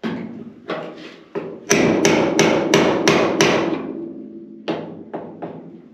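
Body hammer striking the coupe's steel roof panel against a dolly, working out the caved-in dent: about a dozen blows, including a quick run of about three a second in the middle. The sheet metal rings briefly after the blows.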